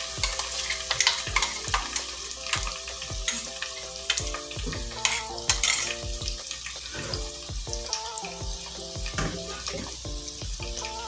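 Freshly ground masala paste (coconut, ginger, garlic, coriander seed, cashew) sizzling as it fries in oil in a pan, stirred with a spoon that clicks and scrapes against the pan many times.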